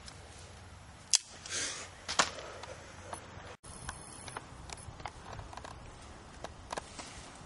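Handheld camera handling noise and light rustling, with two sharp clicks about a second apart near the start.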